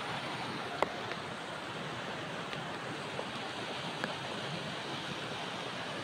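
Steady rush of a fast stream of white water running down a rocky bed, with one small click about a second in.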